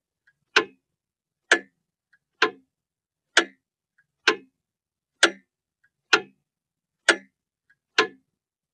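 Mechanical clock ticking steadily, a sharp tick a little faster than once a second, with a faint small click falling between some of the ticks.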